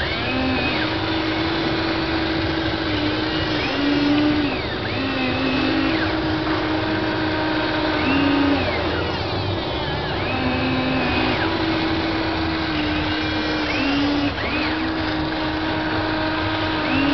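Hobby Engine radio-controlled toy excavator's small electric motors whining as the boom, arm and bucket move, the whine starting, stopping and changing pitch every second or two as each motion begins and ends.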